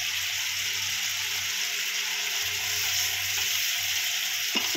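Thick onion-tomato and curd masala sizzling steadily in a frying pan as a wooden spatula stirs it, the gravy being fried down until the oil separates.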